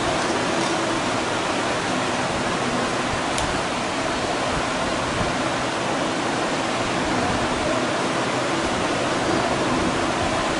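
A steady, even hiss, with one faint click about three and a half seconds in.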